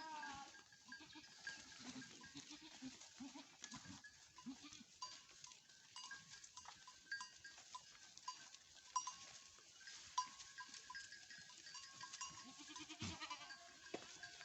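Faint sounds of a small herd of local goats moving through forest: scattered soft rustles and clicks, with a goat bleating once about thirteen seconds in.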